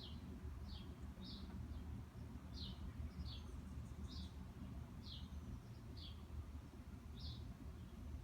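Maytag Centennial top-load washer (MVWC360AW0) drum coasting down after its spin cycle, a steady low hum, with no brake to stop it. Over it come short, high, falling chirps about once or twice a second at uneven spacing.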